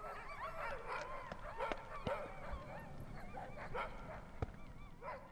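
A team of sled dogs yelping and barking together, many short high calls overlapping.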